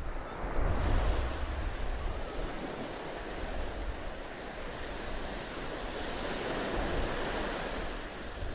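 Rushing sound of surf with wind buffeting the microphone. Low gusts are heaviest in the first second, then a steady wash of waves that swells gently.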